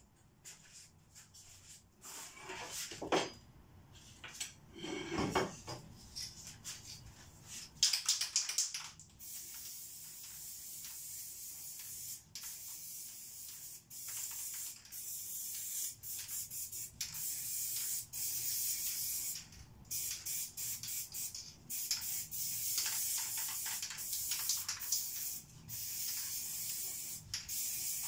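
Aerosol spray paint can hissing in repeated bursts of a second or several, with short breaks between them. A few rustling handling sounds come before the spraying starts, about a quarter of the way in.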